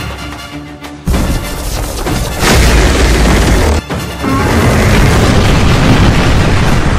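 Dramatic soundtrack music layered with heavy booms and explosion sound effects: a sudden loud hit about a second in and another at about two and a half seconds, then a sustained loud rumble.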